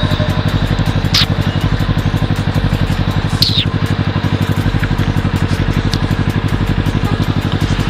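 Kawasaki ER-6n's parallel-twin engine idling steadily, its exhaust pulses even and rapid. Two brief high-pitched squeaks cut in, about a second in and again two seconds later.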